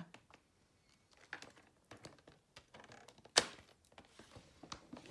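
Scoring carriage of a Vaessen Creative paper trimmer pressed and drawn along its rail over a cardstock strip: faint scraping and small clicks, with one sharp click about three and a half seconds in.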